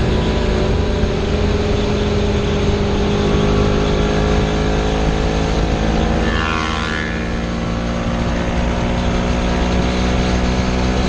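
Motorcycle engine running at cruising speed under a steady rush of wind over the microphone, its note slowly climbing. About six to seven seconds in the note briefly dips and glides, then climbs again.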